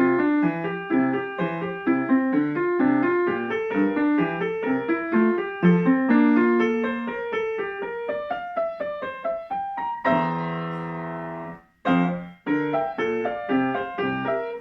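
Solo grand piano playing a classical piece: a stream of quick notes, then a chord held and left to ring about ten seconds in, a brief silence, and more notes leading to a fresh chord struck right at the end.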